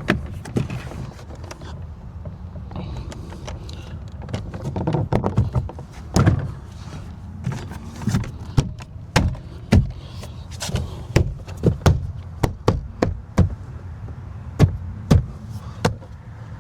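Car door trim panel being slid down onto the door and pressed home. A run of sharp knocks and clicks, one or two a second, fills the second half as the panel's clips are pushed into place.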